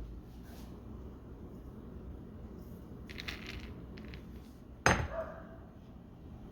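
Kitchenware being handled: a soft rustle about three seconds in, then one sharp clink of a hard utensil on a dish near the end, ringing briefly.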